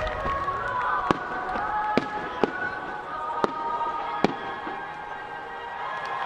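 Aerial firework shells bursting, five sharp bangs at uneven spacing in the first four seconds and none after that. Under them runs a steady background of held tones.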